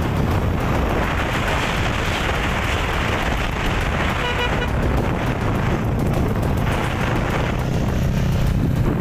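Motorcycles riding in a group: engines running under a steady, dense rush of road and wind noise.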